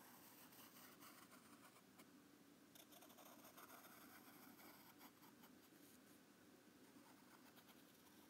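Faint scratching of a graphite pencil drawing curved strokes on lined notebook paper, coming in uneven runs that are busiest a few seconds in.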